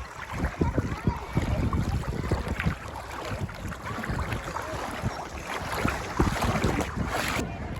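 Water splashing and sloshing in irregular strokes, with wind buffeting the microphone.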